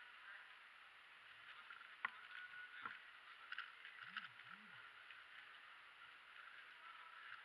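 Faint plastic clicking and rattling of a stickerless MoFangGe QiYi WuQue 4x4 speedcube being turned rapidly by hand, with a couple of sharper clicks about two and three seconds in, over a low steady hiss of hall ambience.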